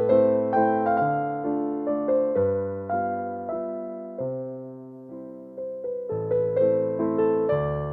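Background music: gentle piano playing chords and a melody, the notes struck and fading, thinning out to a few quiet notes midway before picking up again.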